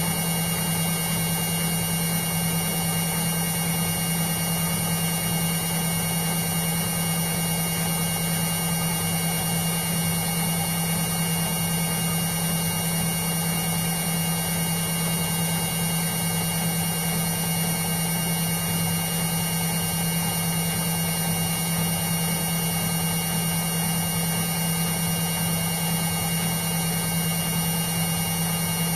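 Indesit washing machine running steadily, a constant low hum with a higher whine over an even rush of noise, unchanging throughout.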